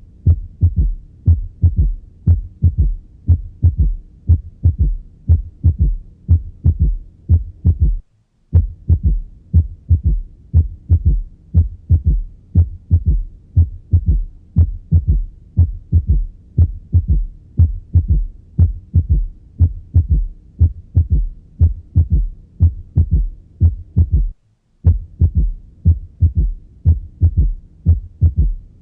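Stethoscope recording of heart sounds beating steadily, demonstrating a third heart sound (S3) just after the second sound, the rapid passive ventricular filling that can be normal in healthy children or a sign of ventricular dilatation. The beat breaks off twice for a moment, about eight seconds in and again near the end.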